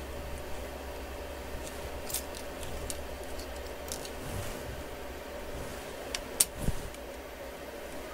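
Faint, sharp little clicks and taps of metal tweezers and a flex cable against a smartphone's frame and board connectors, a few scattered clicks with the sharpest about six seconds in, over a steady low hum.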